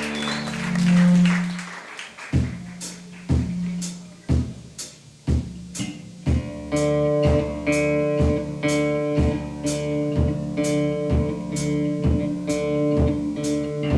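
Live band starting a song: a held low bass note, then a kick-drum beat about once a second, with the full band's string chords coming in about six seconds in over a beat about twice a second.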